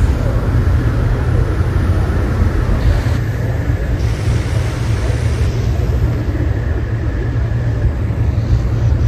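Balloon inflator fans running with a steady, loud low drone, with faint crowd voices underneath.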